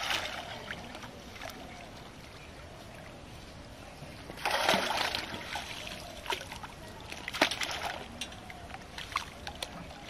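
Pond water splashing as a hand-held dip net on a bamboo pole is worked in the water, then a louder rush of water a little before halfway as the net is lifted and water pours out through the mesh, followed by scattered splashes and drips.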